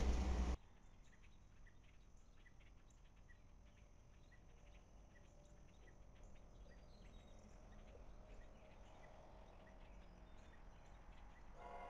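Faint outdoor evening ambience with small chirps about twice a second. A loud, even noise cuts off abruptly just after the start, and a brief pitched sound comes near the end.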